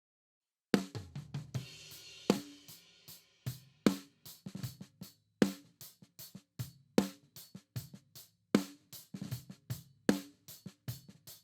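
Snare-top microphone drum track played back through a plugin emulation of the API 2500 compressor. Sharp snare hits with kit bleed and a cymbal wash start under a second in, then the hits carry on in a steady groove.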